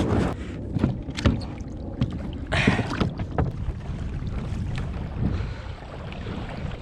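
Kayak launched off rocks into the water: the hull knocks and scrapes a few times with splashing, the loudest scrape and splash about two and a half seconds in, then steady water and wind noise as it floats free.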